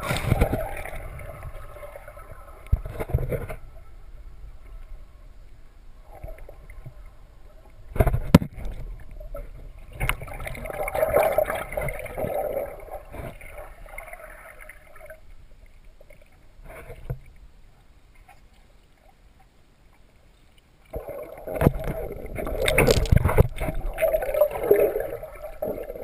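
Muffled underwater sound picked up through a camera's waterproof housing: swells of dull water noise with several sharp knocks and bumps against the housing.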